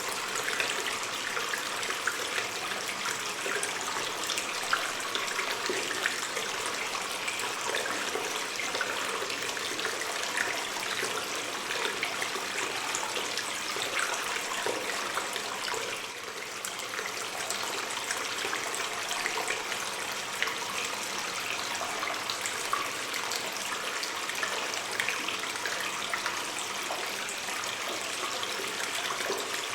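A water stream running in a cave: a steady rush of flowing water with many small splashes and gurgles, dipping slightly in level about halfway through.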